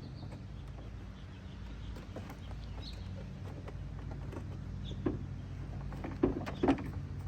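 A few short knocks and clicks as the Jeep door's window regulator parts are handled and lifted out, over a steady low hum.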